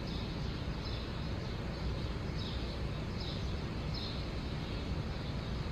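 Steady outdoor background rumble with a few short, high bird chirps spaced about a second apart.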